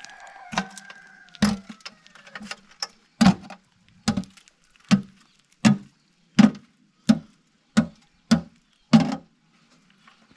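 A metal pail knocked repeatedly against rock to shake out the last of its contents: about a dozen sharp clanks, roughly one every two-thirds of a second, that stop a second before the end.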